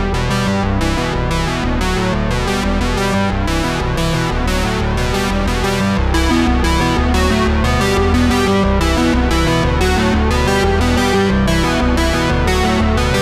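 Background music with a steady beat, led by synthesizer and electric piano.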